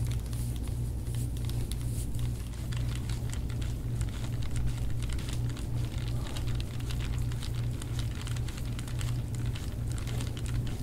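An elbow and forearm pressing and sliding over an oiled bare back in deep-tissue massage: a running patter of small skin-friction clicks and crackles, over a steady low hum.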